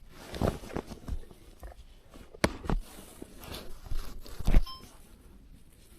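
Irregular thumps and knocks of handling or footsteps, about eight of them, the loudest about four and a half seconds in.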